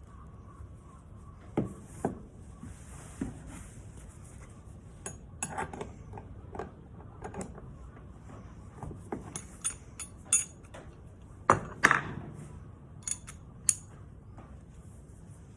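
Irregular clinks and knocks of small hard parts being handled and set down, a dozen or so scattered taps, as a pressure washer's rotary nozzle is taken apart.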